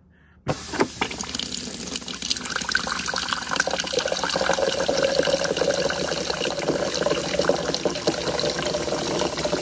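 KitchenAid refrigerator's door water dispenser running a steady stream into a plastic cup, starting abruptly about half a second in. The water is run to flush a newly installed water filter.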